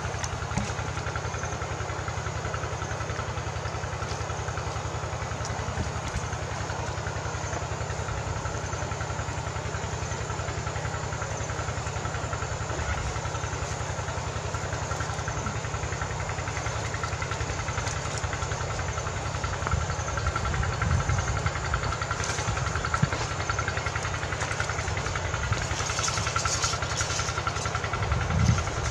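An engine running steadily at idle, an even drone that does not change speed, with a few louder knocks over it in the second half.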